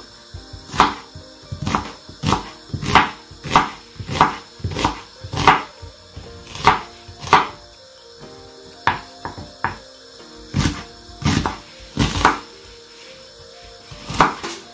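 Kitchen knife chopping an onion on a wooden cutting board: about eighteen sharp knocks of the blade hitting the board, at an uneven pace of a little over one a second, with short pauses, over faint background music.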